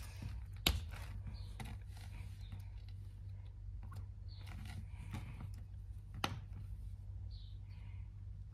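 Small clicks and rustles of silicone Squigz suction-cup pieces being handled and pressed together, with two sharper clicks, one about a second in and one around six seconds in, over a low steady hum.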